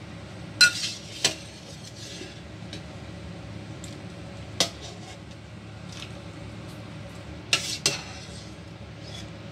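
Metal ladle clinking against a stainless steel stockpot while stirring and lifting pieces out of the soup. There are five sharp clinks: a pair near the start, one in the middle and a close pair near the end, over a steady low background hum.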